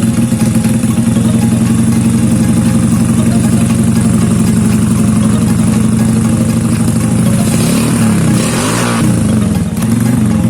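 Suzuki Smash 110's single-cylinder four-stroke engine running under way through an aftermarket Kodrat racing exhaust, with a steady pulsing note. Near the end the pitch dips and rises a few times as the throttle changes.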